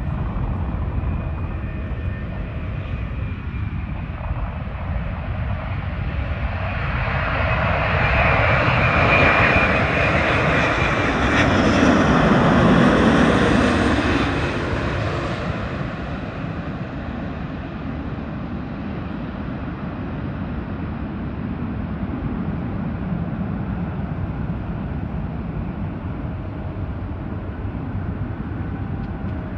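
Airbus A330-900neo airliner on final approach, its Rolls-Royce Trent 7000 turbofans passing low overhead. The jet noise swells over several seconds, peaks about halfway through, then fades and drops in pitch as the plane goes by, leaving a steady low background rumble.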